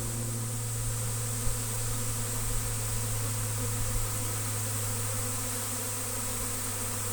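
A large honey bee swarm flying in, a loud steady drone of thousands of wings, low-pitched and constant, loud enough to be mistaken for an airplane spooling up.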